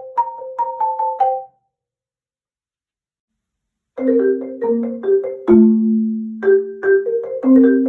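Marimba played with mallets, on an iPhone ringtone melody. A quick run of notes over one repeated note ends about a second and a half in, then after about two and a half seconds of silence a fuller passage starts, with low notes ringing under higher ones.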